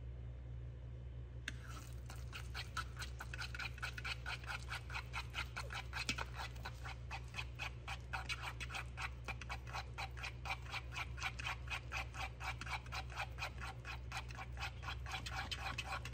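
A fork beating eggs in a small bowl: quick, regular wet strokes, several a second, starting about a second and a half in.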